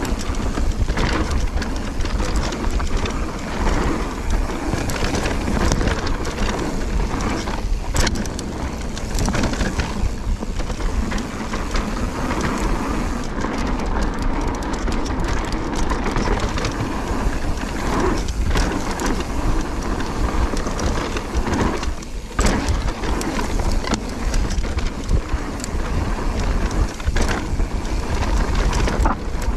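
Mountain bike riding down a dirt singletrack trail: steady rumble of tyres over the ground and wind, broken by frequent knocks and rattles from the bike over bumps.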